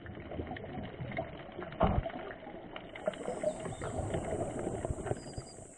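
Scuba regulator exhaust bubbles burbling and crackling, heard muffled underwater as a diver breathes out, with a louder gush of bubbles about two seconds in.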